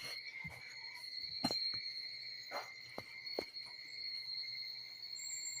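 Crickets trilling steadily in a high, unbroken tone, with several short soft knocks and taps over it.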